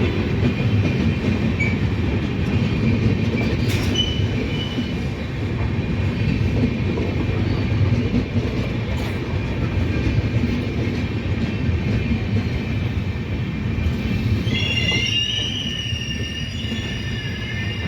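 Indian Railways train rolling into a station under braking: a steady heavy rumble of wheels on the rails with thin high wheel and brake squeal. About fifteen seconds in, the rumble drops away and a cluster of high, wavering squealing tones takes over.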